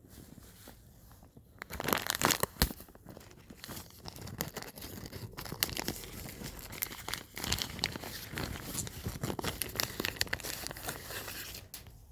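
Packaging being torn open and crumpled by hand: a continuous crinkling rustle broken by sharp crackling snaps.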